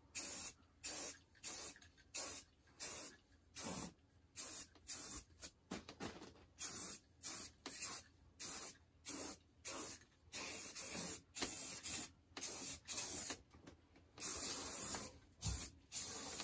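Aerosol spray-paint can hissing in quick short bursts, about two a second, with a couple of longer sprays near the end.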